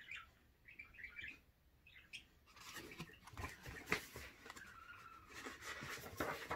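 Faint bird chirping in the first second or so. After that comes rustling and soft slapping of paper as the pages of a hardcover picture book are flipped, loudest about four seconds in.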